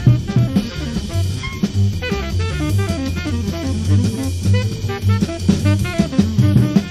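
Live jazz from a bootleg concert recording: a drum kit playing busy, swinging rhythms under a saxophone melody line, with acoustic bass notes underneath.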